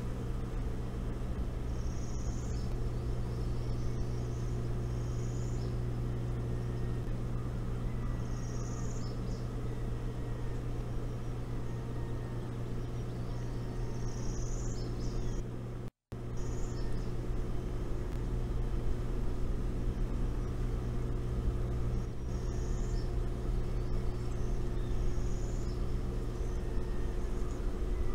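A steady low hum, with short high-pitched bird chirps every few seconds over it. The sound cuts out completely for a moment about halfway through.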